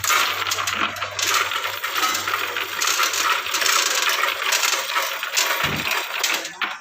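C6240 metal lathe in operation, with dense continuous metallic clinking and rattling; a low motor hum underneath fades out about halfway through.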